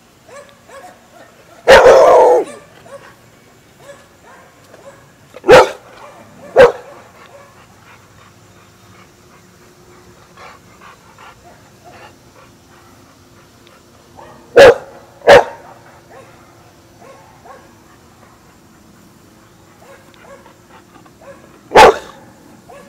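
A dog barking close by: six loud single barks with long pauses between them, some in pairs, the first one longer than the rest.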